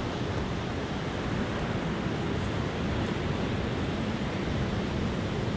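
Steady wash of ocean surf breaking and running up a sandy beach, mixed with wind.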